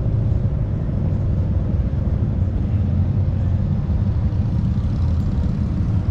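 Steady low engine rumble, unchanging throughout.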